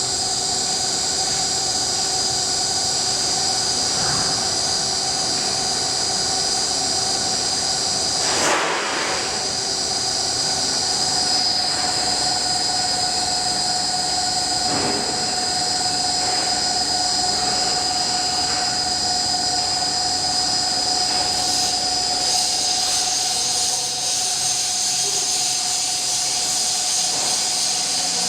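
Delta Machinery DFM-125250 planer-type milling machine running, with a steady high-pitched whine over a lower steady tone. There is a brief burst of noise about eight seconds in.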